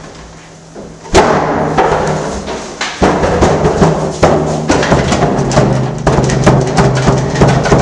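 Soundtrack music that comes in with a sudden loud hit about a second in, then carries on as a drum-driven track with a steady bass line and an even, fast beat.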